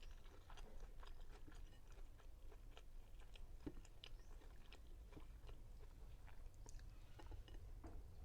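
Faint close-up chewing and mouth sounds of a person eating Spanish-style sardines: many small, irregular soft clicks.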